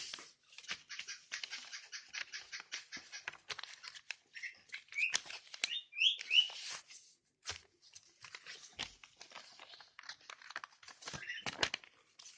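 Sheet of paper being folded and creased by hand for a paper airplane: a run of rustling and crinkling with quick crackles, a few short high squeaks about halfway through, and sharper snaps of paper near the end.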